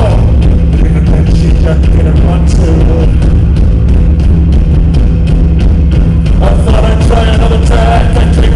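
Rock band playing live at full volume: electric guitar over a dense, heavy low end, with a long held note running through the middle.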